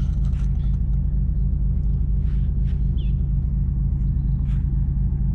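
A steady low rumble, with a brief high chirp about three seconds in.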